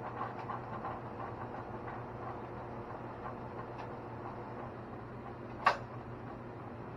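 Two-barrel FBD frozen-beverage (Slurpee) machine running with its beater turning while slush is drained from a barrel through the open dispensing valve, giving a steady mechanical hum. A single sharp click sounds near the end.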